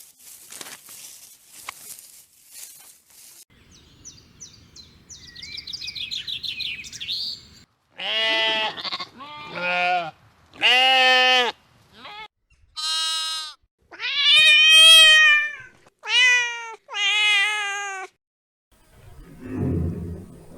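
A goat bleating about eight times in loud, wavering calls, some short and some drawn out. Before the bleats come a few faint clicks and a run of short, high chirping calls.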